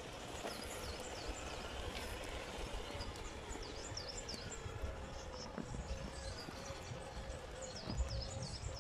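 Small birds chirping in repeated short, falling notes over a low outdoor rumble, with a faint steady whine from the RC crawler's electric motor as it creeps slowly over rocks, coming in about three seconds in.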